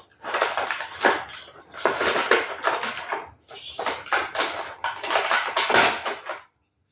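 Packaging being handled: crinkling and rustling of a cardboard box's lined insert and a plastic bag of BBs, in irregular crackly bursts that stop shortly before the end.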